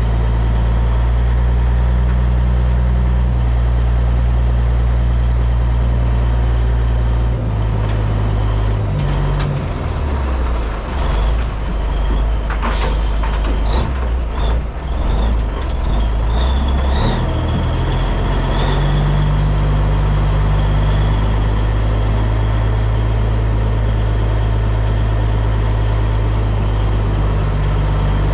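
A 1984 Peterbilt 362 cabover semi-truck engine pulling a flatbed trailer, with a steady low drone. About a third of the way in, the engine note drops and wavers for several seconds as the truck slows and manoeuvres, then settles back into a steady drone. There is a short air-brake hiss near the middle.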